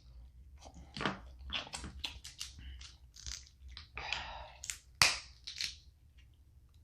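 Close-up eating sounds from a seafood boil: an irregular run of sharp cracks, crunches and wet mouth clicks as snow crab legs are broken open and chewed.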